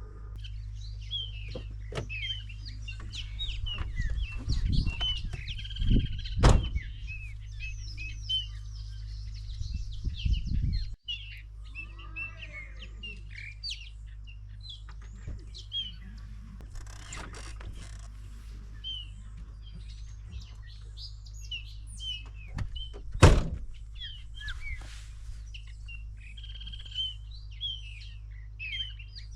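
Many birds chirping and calling in quick, overlapping short notes, over a steady low rumble. A loud thump comes about six seconds in and another about 23 seconds in.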